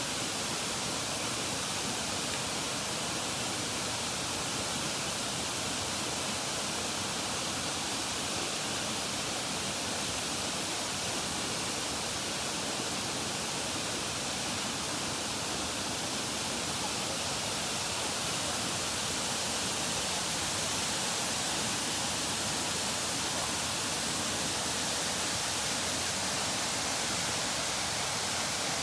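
Steady rush of the Shifen Waterfall, an even roar of falling water with no breaks.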